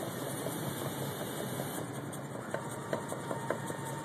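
Steady, even background hum with a few faint light clicks in the second half.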